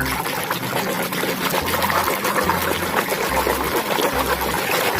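Water running and splashing steadily over a toy as the mud is washed off it.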